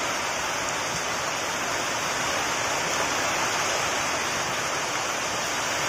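Heavy rain pouring down steadily, an even rushing hiss.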